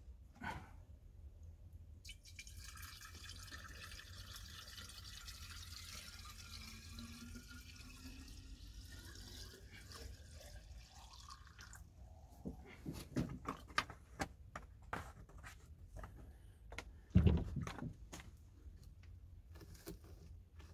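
Water poured from a large plastic bottle into a kettle, a steady rush lasting about ten seconds whose pitch rises as the kettle fills. A run of knocks and clatter follows, with one heavy thump near the end.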